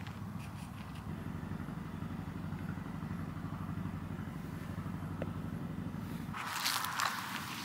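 Low, steady engine-like rumble that cuts off abruptly a little over six seconds in, followed by a short burst of hissy rustling noise.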